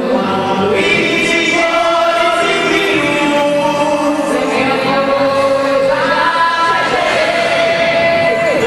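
Music with a group of voices singing long held notes, in the manner of a festa junina quadrilha song.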